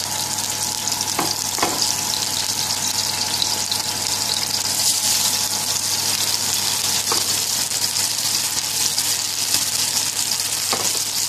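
Raw beef burger patties sizzling in hot oil in a frying pan: a steady frying hiss with a few faint clicks.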